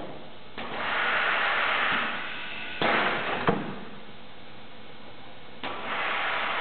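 Automated palletizing machinery working: two spells of hissing, and a sudden noise near the middle ending in a sharp clunk.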